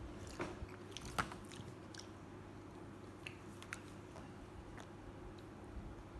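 Faint scattered clicks and light handling noises over a steady low hum, the sharpest click about a second in.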